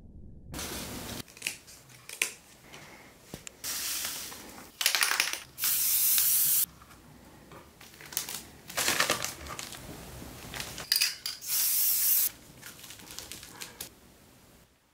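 Craft materials being worked by hand, heard as a series of short hissing, rustling bursts, each under a second long.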